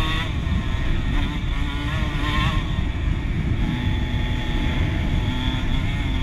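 Dirt bike engine running under way, its pitch rising and falling with the throttle, over a heavy low rumble of wind on the microphone.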